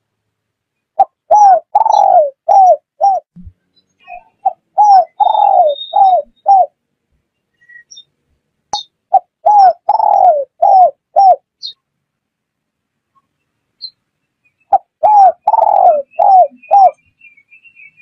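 Spotted dove (chim cu gáy) cooing: four repeated song phrases, each a few short coos around one longer coo that falls in pitch. Faint high chirps of small birds sound between the phrases.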